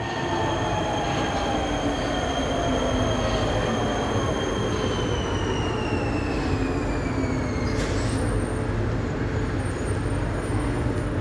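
Metro train running into a station and braking to a stop: several whining tones fall slowly in pitch over a steady rumble. About eight seconds in, the whine ends with a brief hiss as the train halts.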